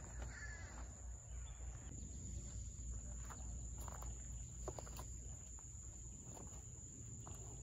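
Faint outdoor ambience: a steady low rumble and a steady high-pitched whine, with a few faint scattered clicks and ticks.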